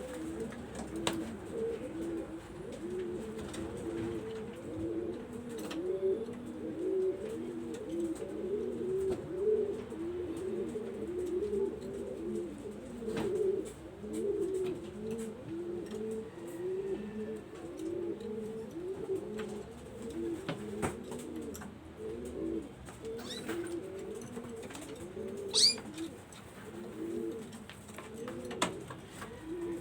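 Several domestic pigeons cooing together, a continuous run of overlapping low, rolling coos. A single sharp, higher bird call cuts in near the end.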